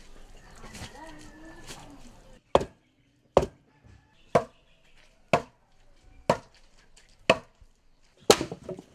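Seven sharp chopping blows, about one a second, starting about two and a half seconds in, after a short stretch of low background sound.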